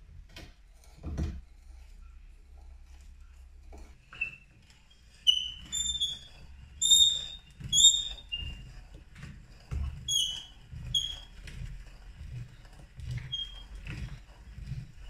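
Hand brace and auger bit boring into wood, with a low rhythmic grinding of the cut as the brace is cranked. Short high squeaks come with the turns, a string of them between about five and eleven seconds in. There are two knocks near the start.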